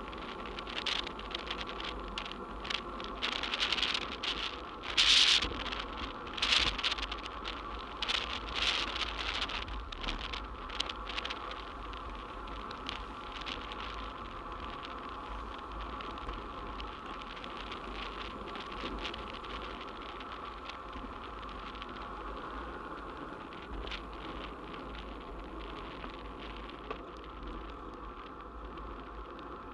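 Riding noise picked up by a bicycle-mounted camera: a steady hiss of wind and tyres on the road, with louder gusty surges in the first ten seconds that then settle to an even hiss.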